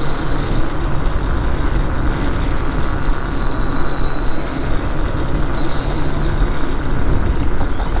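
A vehicle driving along a campground road: steady engine and road rumble, with a low hum that fades and comes back.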